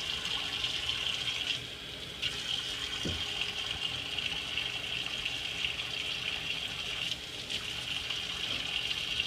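Tap water running steadily from a faucet into a stainless steel sink, its hiss dipping briefly twice, about two seconds in and again about seven seconds in. A short low thump about three seconds in.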